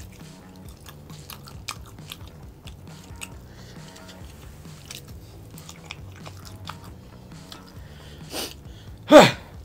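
Close-miked chewing and biting into sauce-coated beef rib meat: many small wet smacks and clicks over quiet background music. Near the end comes a short, loud voiced exclamation that falls in pitch.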